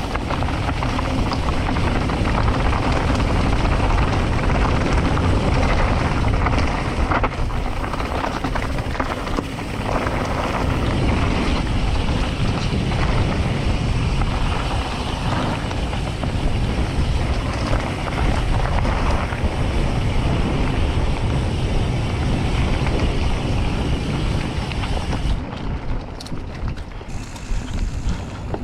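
Wind rushing over the microphone of a camera riding on a moving mountain bike, together with low rumble from the bike rolling over the dirt trail; it rises and falls without letting up.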